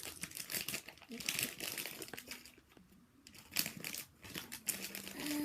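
Plastic packaging crinkling and rustling in quick irregular bursts as a squishy toy is handled, easing off briefly in the middle. A drawn-out voice sound comes in near the end.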